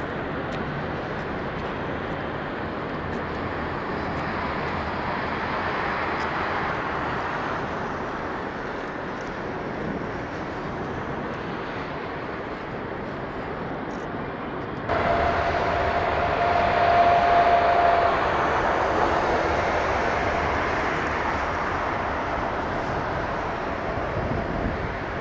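Jet airliner engines running at taxi power: a steady rush of jet noise. Partway through, the sound jumps abruptly louder and closer, with a steady whine for a few seconds, as a Boeing 777 freighter taxis past.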